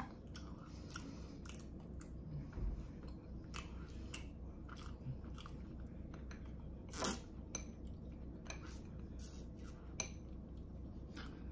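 Close-miked eating sounds: soft, irregular chewing clicks from a person eating pastry, with sips through a straw and one louder mouth sound about seven seconds in.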